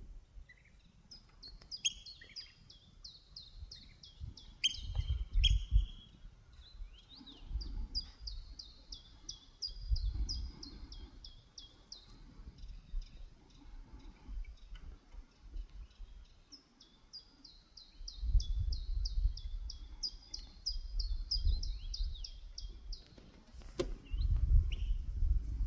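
A sandpiper calling in long rapid series of high, falling notes, about four or five a second, with a break in the middle. Low rumbling bursts come and go underneath.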